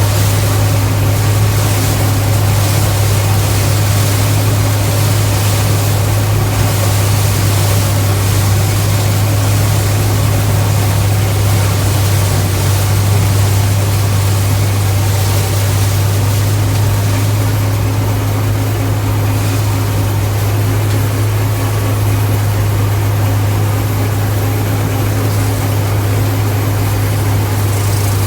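Gleaner K combine running steadily: a loud, constant low hum with a hiss of machinery noise over it.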